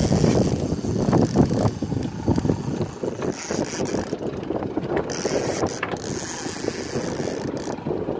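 Conventional fishing reel being cranked steadily, its gears making a fast rough whir, as a hooked fish is reeled up to the boat.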